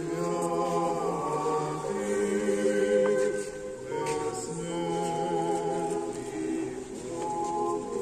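Church choir singing a memorial-service chant a cappella: several voices holding sustained chords together, moving to a new chord every couple of seconds, with brief breaks about four and seven seconds in.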